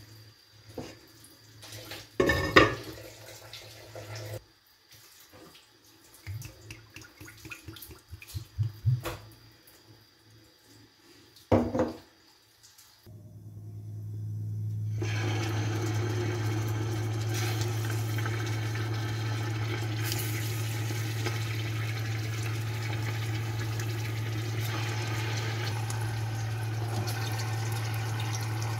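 Knocks and clatter of a stainless-steel pot on a gas hob's iron grates, loudest about two and a half seconds in and again near the middle. Then a steady rushing noise with a low hum rises over a couple of seconds and holds unchanged.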